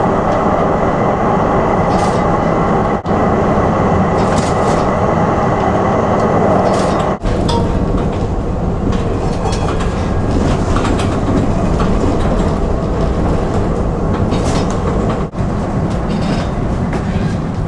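Vienna tram running along street track, heard from inside the car: a steady rumble of wheels and running gear, with now and then a short clatter of the wheels over rail joints or points.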